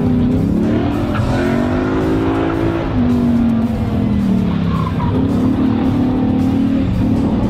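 Ford Coyote 5.0-litre DOHC V8 in a Mustang being driven hard through an autocross course. The engine revs rise and fall several times as it accelerates and slows between the cones, with tyres squealing in the turns.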